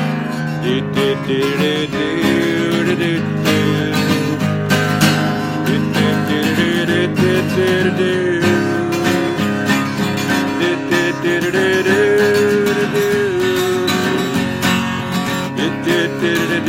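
Acoustic guitar strummed steadily as song accompaniment, with a held, wordless vocal melody over it.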